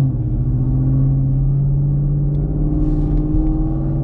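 Chevrolet Camaro SS 6.2-litre V8 with Kooks headers and a Borla ATAK exhaust, running steadily at low revs as the car rolls along, heard from inside the cabin. Its pitch edges up slightly in the last second or so.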